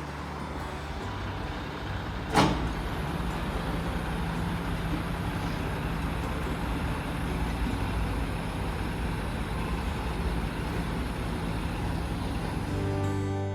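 Steady vehicle engine and road noise, with one sharp knock about two seconds in.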